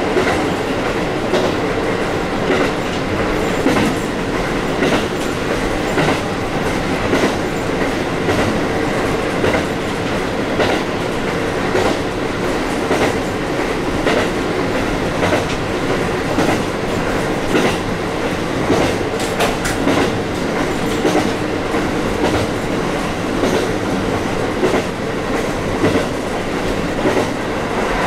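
KiHa 40 series diesel railcar under way, heard from inside the car: a steady diesel engine and running drone with the wheels clicking over rail joints in a regular rhythm about once a second.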